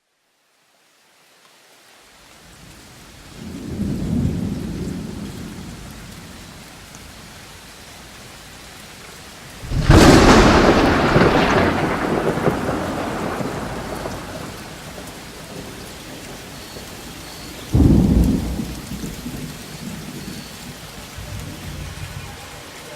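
Thunderstorm: steady rain fading in, with three peals of thunder, a low rumble a few seconds in, a loud sharp crack about ten seconds in that rolls away slowly, and another clap near the end.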